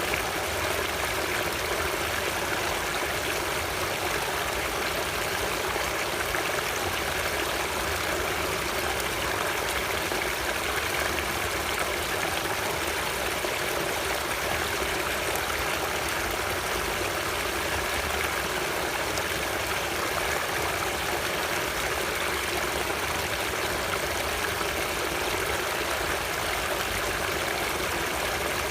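Flowing water running steadily, an even rushing with no breaks.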